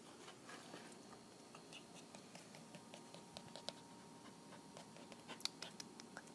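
Near silence with faint, scattered clicks and scratches, bunched together about five seconds in.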